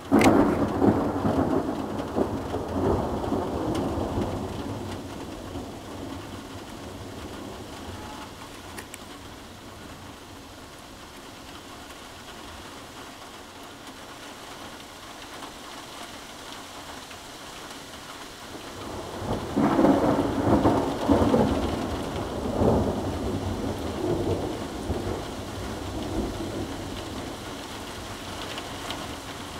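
Thunder over steady rain: a sharp crack right at the start breaks into a loud rumble that dies away over about six seconds. About twenty seconds in, a second peal rolls in several loud waves before fading, with rain falling throughout.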